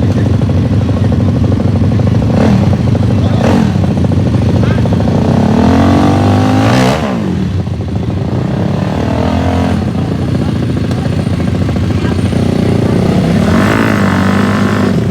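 Four-stroke dirt bike engines running and revving. The pitch climbs several times, and the longest climb ends abruptly about seven seconds in.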